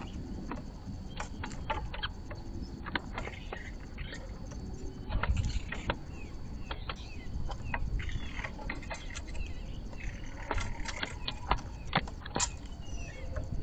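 Blue jay feeding at a seed feeder: irregular sharp clicks and taps of its beak on seeds and the feeder, with a few short calls in the second half.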